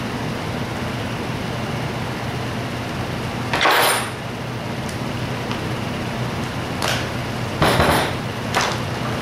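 Small engine parts clattering on a workbench as a Zenoah G270 two-stroke engine is put together by hand: a few short knocks and rattles, the loudest about three and a half and about seven and a half seconds in, over a steady hum.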